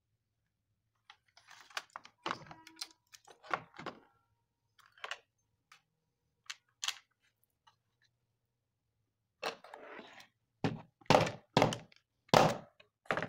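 Hard plastic knocks and clicks as an induction cooktop's parts and black plastic housing are handled and set down on a workbench: scattered light clicks at first, then a run of louder knocks from about ten seconds in.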